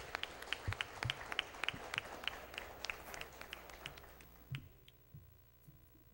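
Audience applauding with scattered, fairly sparse handclaps that die away about four seconds in, followed by a few soft knocks.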